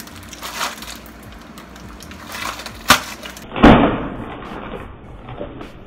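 Kitchen handling noises while a package is being worked open: a sharp click about three seconds in, then a louder, heavier knock about half a second later.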